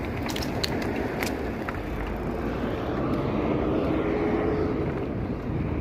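Wind and street traffic noise heard while riding a bicycle, with a motor vehicle's engine note coming through in the middle. A few light clicks sound near the start.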